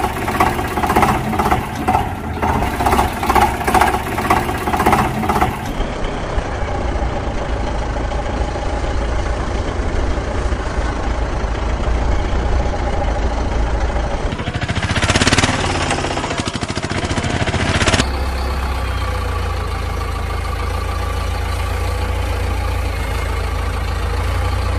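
Engine sound effects dubbed over toy vehicles: first a pulsing engine beat about twice a second, then steady engine running, switching abruptly to a different engine sound at several points.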